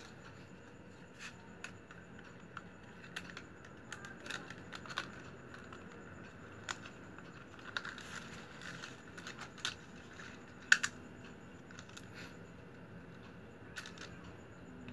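Plastic strapping strips rustling and clicking as they are handled and woven together by hand: scattered light ticks and crinkles, with one sharper snap about eleven seconds in.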